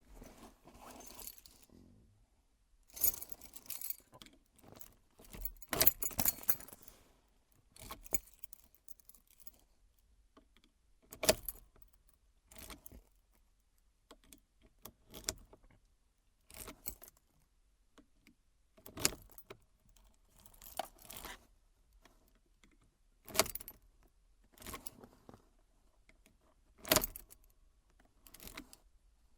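Key being inserted into a car's ignition over and over, the keyring jangling with each go. Short metallic clicks and rattles come every couple of seconds, with a longer stretch of fumbling and scraping in the first several seconds.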